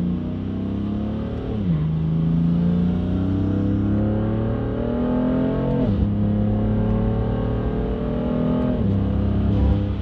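BMW F80 M3's twin-turbo inline-six accelerating hard through the gears with a VRSF single midpipe in place of the secondary cats and mid resonator. The pitch climbs steadily and drops sharply at three upshifts, and the exhaust note is deep, without rasp.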